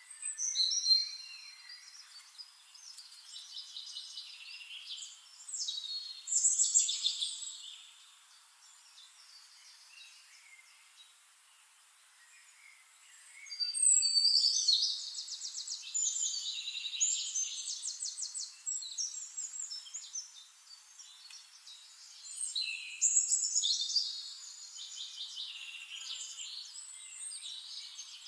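Songbirds singing: high whistled phrases and fast trills come in bursts, with a quieter lull of several seconds partway through.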